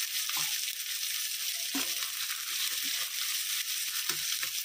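Oil sizzling in a pan as chopped green chillies, garlic and ginger fry, with a few brief stirring sounds.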